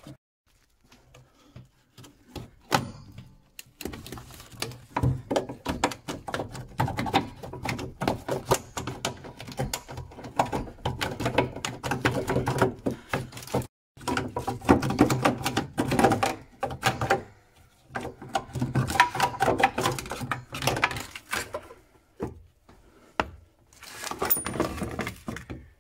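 Plastic sump of an Ideal Logic combi boiler being prised and rocked off its clips with flathead screwdrivers: irregular clicks, knocks and scraping of plastic and metal tools as its seal is broken and the back clips give.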